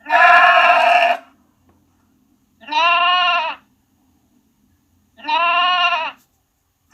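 Sheep bleating: three separate baas of about a second each. The first is rougher, and the next two are clearer with a slight waver in pitch.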